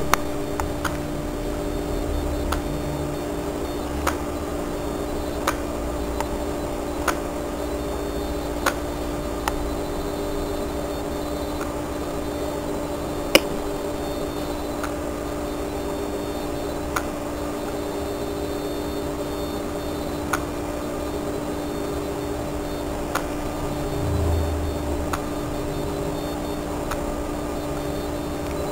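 Electronic throttle body's DC motor, driven by a PWM signal, humming steadily as it holds the throttle plate part-open, with short sharp ticks every few seconds.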